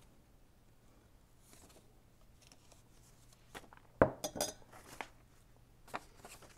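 Quiet handling of paper envelopes on a cutting mat over a faint steady low hum. About four seconds in there is a sharp knock, then a quick run of light ringing clinks, as of a small hard object set down among the craft supplies.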